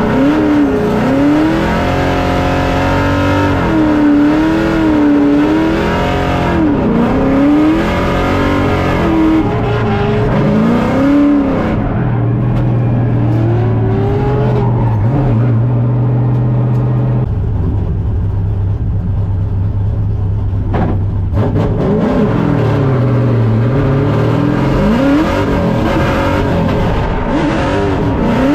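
LS3 V8 in a Nissan S14 drift car revving up and falling back again and again through a drift run, heard from inside the cabin, with a stretch of steady revs around the middle.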